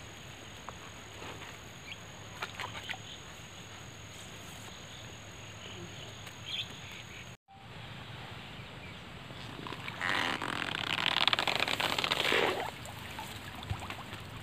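Outdoor waterside background with scattered small clicks, then water splashing and pouring for a couple of seconds about ten seconds in. The sound drops out for an instant just past the middle.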